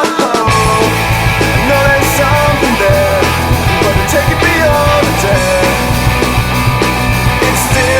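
Melodic rock band playing an instrumental passage: a lead guitar line with bent notes over bass guitar and drums. The bass and drums drop out briefly and come back in just after the start.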